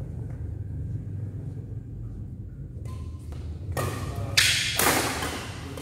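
Badminton rally: rackets striking the shuttlecock, with sharp hits starting a little before four seconds in and the loudest about four and a half seconds in, over a steady low hum.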